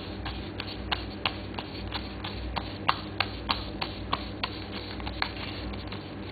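Playing cards clicking one by one as they are thumbed from one hand to the other in a spread, about three light ticks a second, over a faint steady hum.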